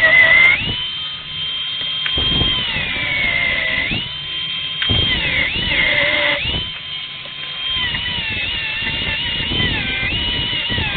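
Angle grinder with a cutting disc notching an aluminium engine side case. Its motor's whine drops in pitch each time the disc bites into the cut and rises again as it frees up, four times over.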